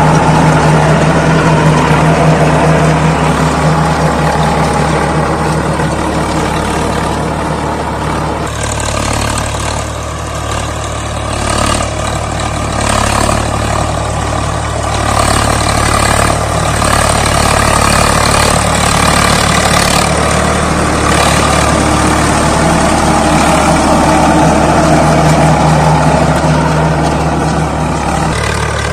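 Swaraj 855 FE tractor's three-cylinder diesel engine running steadily while it works a rotavator through the soil. The engine gets quieter for a few seconds about a third of the way in, then comes back up.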